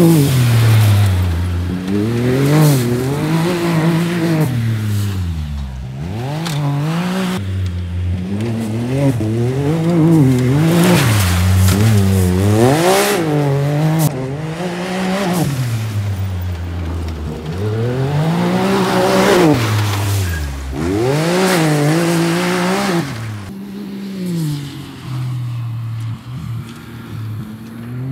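Can-Am Maverick X3 DS side-by-side engine revving up and easing off over and over as it is driven hard around a dirt motocross track. The rises and falls come about every two seconds, and the engine grows fainter near the end.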